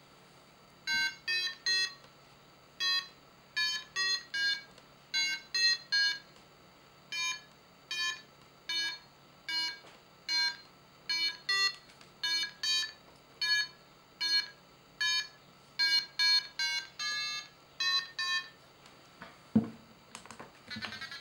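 GoFly Instruments paragliding variometer sounding its instant 'beep beep' lift audio: short electronic beeps, mostly in pairs or threes about a second apart, their pitch shifting a little from group to group, signalling climb. One sharp knock near the end.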